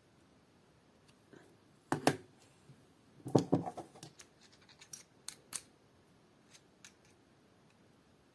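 Small hard clicks and a short rattle of a 3D-printed PLA bit driver and a metal screwdriver bit being handled: two clicks about two seconds in, a denser cluster around three and a half seconds, then lighter ticks, as a bit is worked into the driver's clamping mechanism.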